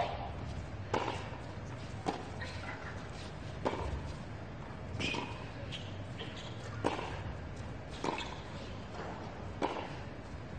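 Tennis rally on a hard court: racquets strike the ball back and forth, eight hits in all, one every one to two seconds, over a steady low background hum.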